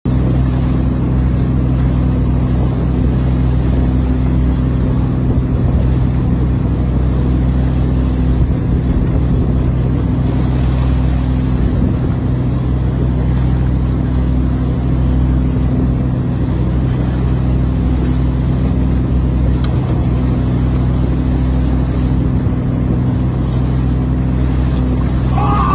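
Fishing boat's engine running at a steady speed, a loud, even low drone.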